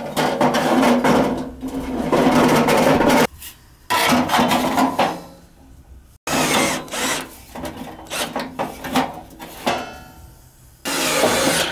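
Scraping and rubbing of metal parts being handled while a fan wheel is fitted onto a furnace motor shaft, in several loud bursts with short quiet gaps between them.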